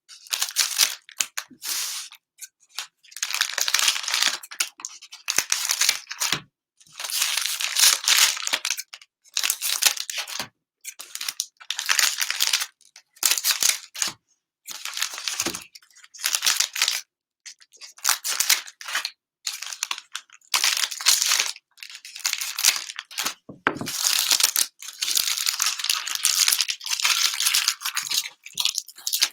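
Cellophane wrapping of trading-card packs being torn open and crinkled by hand, in irregular bursts of about a second with short pauses between.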